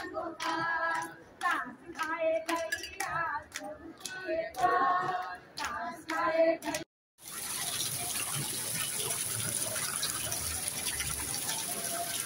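A group singing together with hand claps for about the first seven seconds. After a sudden cut, water pours steadily from a carved stone spout into a pool.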